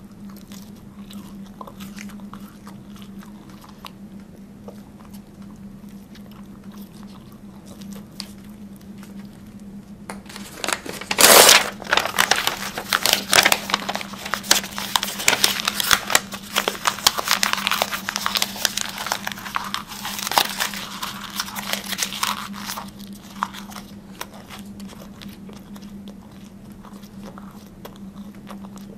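Close-miked biting and chewing of a crumbly white, blue-flecked piece. Faint mouth clicks come first, then a loud crunch about eleven seconds in and some ten seconds of dense crackling and crunching, before it settles back to quieter chewing. A steady low hum runs underneath.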